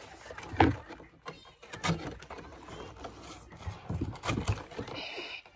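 Cereal-box cardboard being handled and worked by hand: a string of irregular knocks, taps and rustles, with a short scratchy hiss near the end.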